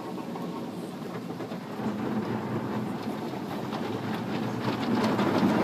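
Automatic car wash machinery running, heard from inside the car as a steady rumble that grows louder toward the end.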